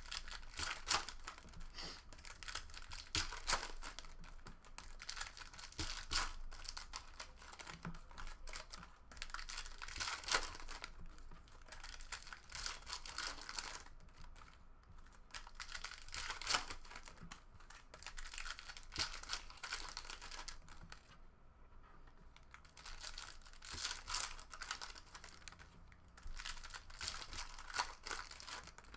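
Trading card foil packs being torn open and their wrappers crinkling, with the crisp flicking and sliding of cardboard cards being sorted and stacked. Irregular rustles and clicks keep coming without a break.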